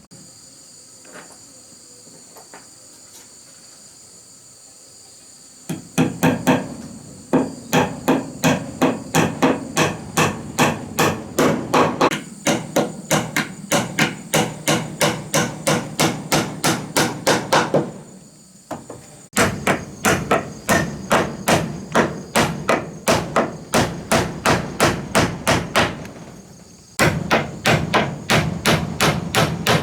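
Hammer blows on wood, fast and even at about two to three strikes a second, in three runs with short pauses between them. Insects chirr steadily throughout and are heard alone for the first few seconds.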